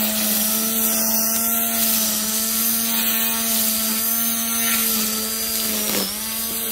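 Wild Badger Power 40V brushed battery string trimmer running at a steady speed while cutting grass: a steady electric motor hum with the hiss of the spinning line. The pitch dips briefly and recovers about six seconds in.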